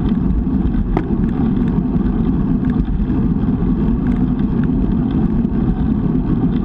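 Steady low rumble of wind buffeting the microphone of a camera mounted on a road bike moving at sprint speed, mixed with tyre noise on asphalt. A single sharp click about a second in.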